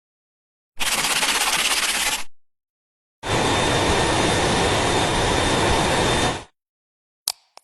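Two separate stretches of steady, noisy power-tool work on metal, each starting and stopping abruptly; the longer second stretch carries a thin, steady high whine. A short sharp knock comes near the end.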